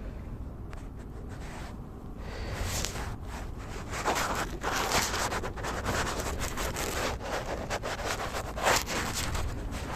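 Irregular rubbing and scraping noise, growing louder about two and a half seconds in.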